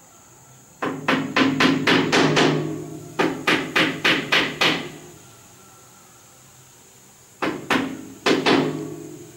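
Runs of sharp knocks, about four a second: one run starting about a second in, another around three seconds in, and a few more knocks near the end.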